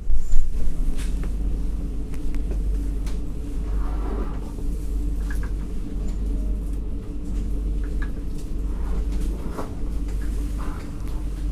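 Steady low rumble of an electric intercity train running, heard inside the passenger carriage. A loud knock comes just after the start, with scattered light clicks and rattles after it.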